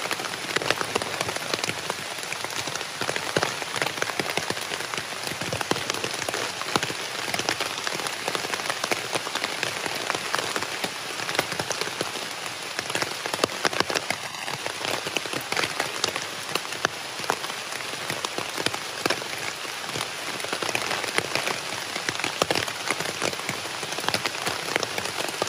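Steady rain falling on a tarp shelter overhead: a dense, unbroken patter of individual drops hitting the fabric.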